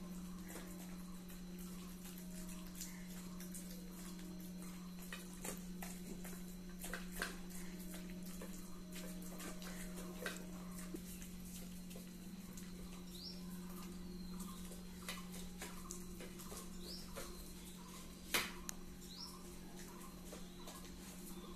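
Pomeranian dogs eating rice from steel bowls: faint scattered clicks and smacks of chewing and licking, over a steady low hum, with one sharper knock about three-quarters through.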